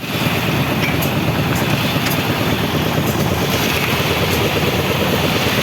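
Engine of construction machinery running steadily, with a few faint sharp clicks over it.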